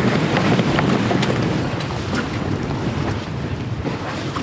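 Strong wind blowing across a sailboat's deck and rumbling on the microphone, with a few faint clicks scattered through it.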